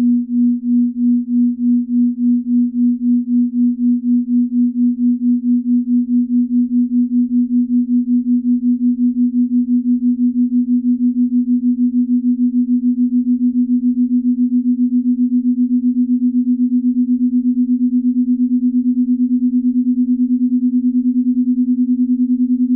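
Binaural-beat sine tone: one steady low hum that pulses in loudness. The pulsing quickens from about two beats a second to five or six a second.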